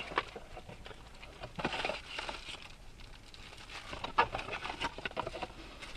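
Irregular rustling and light clicks of a dash cam's parts and plastic packaging being handled while it is unboxed.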